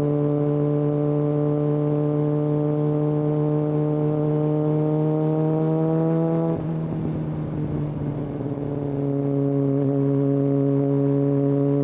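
Kawasaki ZX-6R inline-four engine through a Hindle aftermarket exhaust, holding a steady droning note while riding, its pitch creeping slightly upward. About six and a half seconds in, the note breaks up and drops in level for about two seconds, then settles back into a steady drone slightly lower in pitch.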